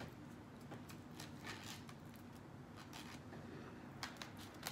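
Faint clicks and scrapes of a plastic fork in foam takeout containers, scooping up macaroni and cheese and moving it into another box, with a few scattered taps.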